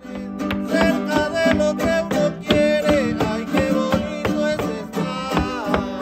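Acoustic music: small guitars strummed in a quick, steady rhythm, with a woman's voice singing over them.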